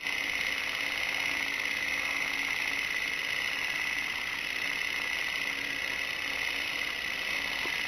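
Steady, even hiss-like noise with a faint low hum under it, cutting in abruptly at the start.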